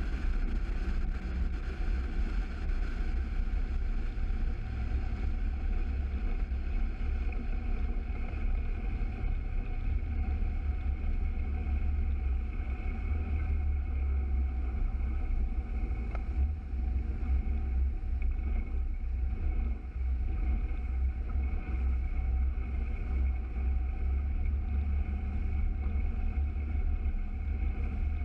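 Mercury 115 Pro XS outboard running at a steady speed on a 13 ft inflatable RIB under way, a constant drone over a heavy low rumble that doesn't let up.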